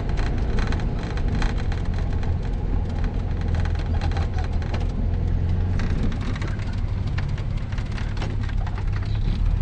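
Car driving slowly, heard from inside the cabin: a steady low drone with a dense crackle of clicks on the microphone.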